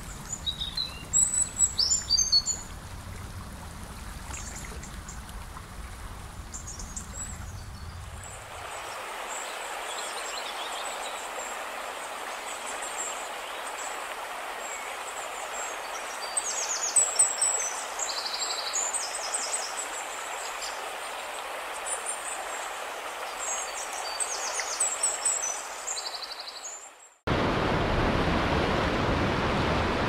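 Flowing river water with songbirds chirping and singing over it. About nine seconds in, the water changes to a steadier, higher rush of water pouring over a weir, with birdsong returning in short phrases. Near the end it cuts sharply to a louder, fuller rush of fast-flowing river.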